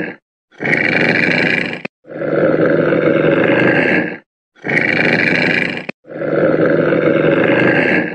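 Giant panda calls played on a loop: a long, deep call about two seconds long alternates with a shorter, higher-pitched one, each cutting off sharply into a brief silence, the pair repeating about every four seconds.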